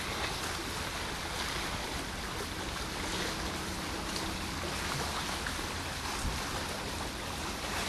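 Steady wash of wind and water out on open water, with wind rumbling on the microphone.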